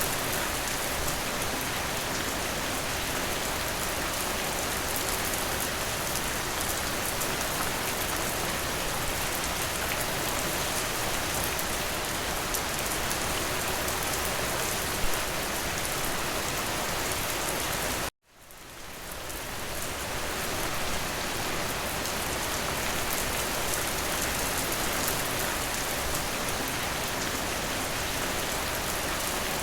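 Steady, even rain. About two-thirds of the way through it cuts out suddenly and fades back in over a couple of seconds.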